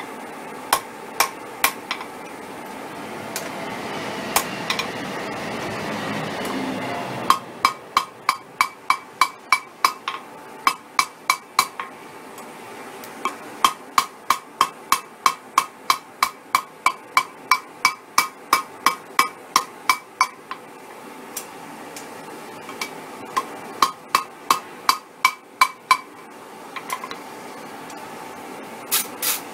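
Hand hammer forging a red-hot mild-steel chain link on an anvil: runs of about three blows a second, each with a bright metallic ring, broken by short pauses. A few seconds of rushing noise come before the long run of blows.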